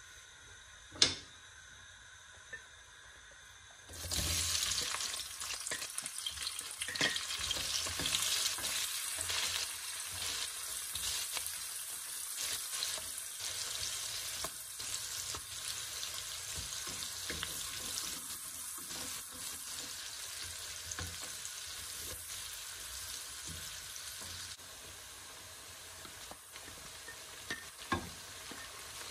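Sliced onions hit hot oil about four seconds in and sizzle, frying on while a wooden spoon stirs and scrapes them around a non-stick pan. The sizzle eases somewhat later on. A sharp click comes about a second in.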